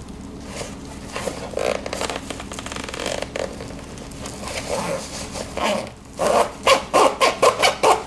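Zipper on a fabric lunch cooler bag being pulled along its track, with slower rasping strokes at first and a quick series of short zips near the end.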